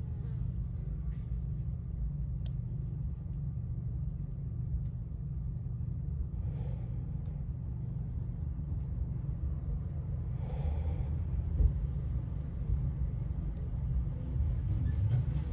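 Steady low background rumble, with a few faint clicks and two short hissing noises about six and ten seconds in.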